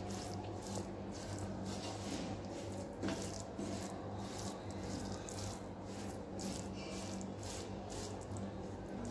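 Wooden spatula scraping and stirring a grainy, syrup-soaked besan mixture around a nonstick pan, about two strokes a second, over a steady low hum.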